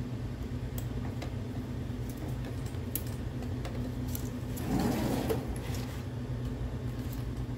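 Scattered light metallic clicks and clinks of hand tools working on a motorcycle footpeg mount as the peg bolt is snugged up, over a steady low hum.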